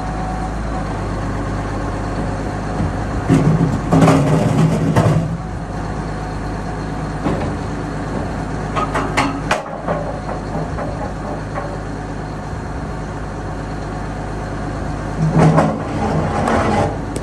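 A tractor engine runs steadily, driving a PFM 521 hydraulic rock picker as it works through its hydraulic dump. About three seconds in there is a loud rattling clatter of rocks against the steel hopper lasting roughly two seconds, a few sharp knocks come around nine seconds, and another clatter comes near the end.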